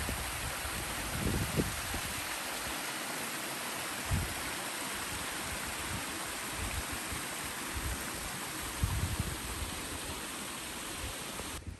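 Water of a small waterfall spilling over travertine ledges into pools, a steady rushing hiss, with a few soft low bumps. It cuts off shortly before the end.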